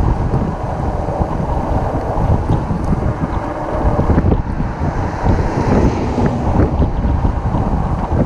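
Wind buffeting the action camera's microphone while riding an electric bike, a loud, rough, low rumble throughout. About five seconds in, an oncoming car passes, adding a brief rush of hiss.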